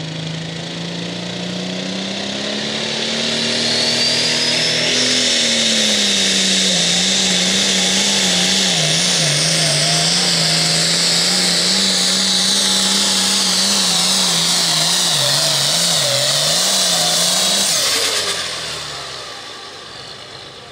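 Limited Pro Stock pulling tractor's turbocharged diesel engine at full throttle during a pull. The engine note climbs over the first few seconds with a rising high whine, then holds at full power with a wavering pitch, and drops away about eighteen seconds in.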